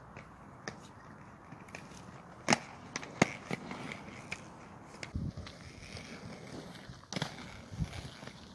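Inline skate wheels rolling and scraping on rough asphalt, with scattered sharp clacks of the skates striking the ground; the two loudest come about two and a half and three seconds in.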